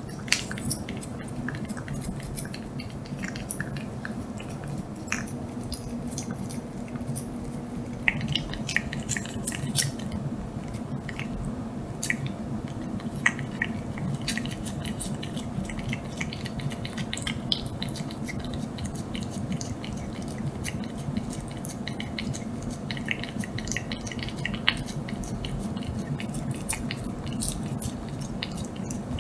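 A cat licking and eating a Churu lickable paste treat: quick, irregular wet lapping and smacking clicks. A steady low hum runs underneath.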